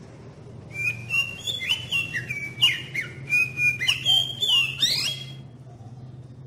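Oriental magpie-robin (kacer) singing a quick run of loud, clear whistled notes that slide up and down, starting just under a second in and stopping about a second before the end.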